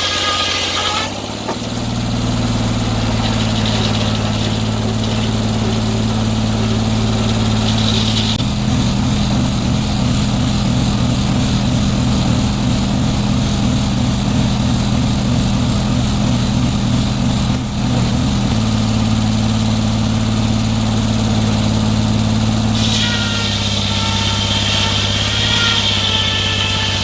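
Sawmill engine running without a break. A higher-pitched whine in the first second drops to a steady lower hum, which throbs unevenly for about ten seconds in the middle; the whine comes back near the end.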